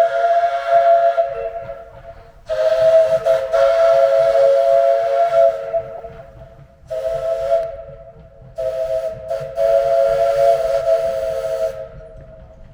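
Steam whistle of a small 1927 Vulcan 0-4-0T narrow-gauge steam locomotive, sounding a chord of steady tones in separate blasts. The first blast dies away about a second and a half in, then come a long blast, a short one and another long one. That is the long, long, short, long pattern sounded for a grade crossing.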